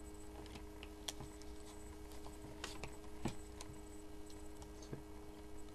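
Trading cards being handled and shuffled by hand: scattered soft ticks and taps of card edges, a couple of them louder a little past halfway, over a steady electrical hum.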